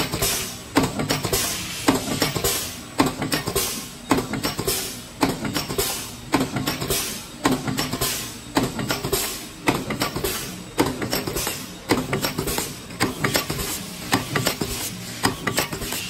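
Aluminium capsule forming line running: a pneumatic press and foil feeder clatter in a steady cycle about once a second, with air hissing between the strokes.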